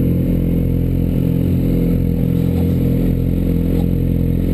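Sportbike engine idling steadily with an even low hum.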